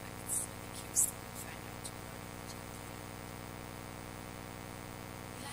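Steady electrical hum with room tone. Two brief high hisses come about half a second and a second in, like the sibilants of faint speech.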